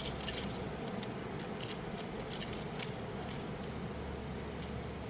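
Light metallic jingling and clinking from the loose broken piston rings and beaded oil-ring expander of a shattered piston as it is handled. The piston comes from a blown Toyota 5E-FE engine. Scattered sharp ticks fall in the first few seconds, the loudest two a little past the middle, then it goes quieter.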